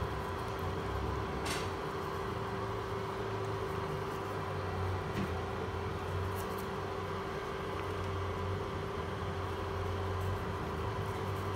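Steady hum of a running kitchen appliance, with a few faint light taps.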